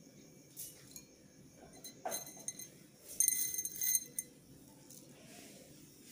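Light clinks of china. There are a few soft knocks, then a louder clinking with a short bright ring about three seconds in, like the ceramic soup bowl knocking against its saucer.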